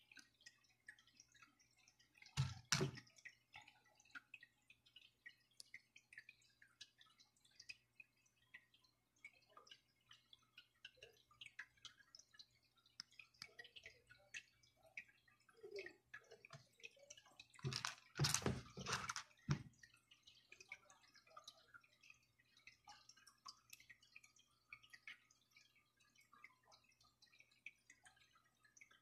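Quiet handling on a plastic cutting board: faint small clicks and taps as food pieces and wooden skewers are moved. A short burst of knocks comes about two and a half seconds in, and a louder run of several knocks around eighteen seconds in.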